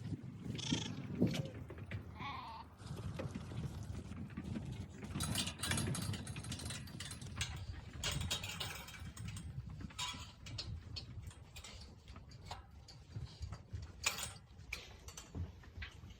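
Sheep bleating now and then, with scattered clatters and knocks.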